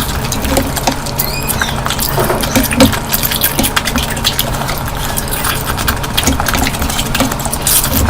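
Close-miked eating of curry: a dense run of wet chewing, smacking and slurping.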